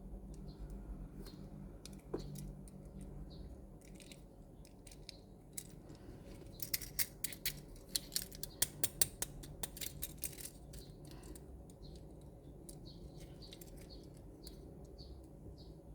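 Small hard toy parts clicking and tapping as they are handled: a quick run of sharp clicks in the middle, with scattered single taps around it, over a faint low hum.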